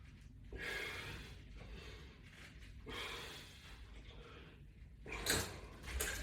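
A man breathing heavily from exertion, with a long, noisy breath about every two and a half seconds.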